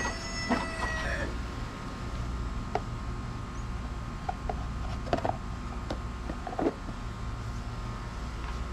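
A rooster crowing, its long held note ending about a second in. After it come a few scattered light clicks and knocks.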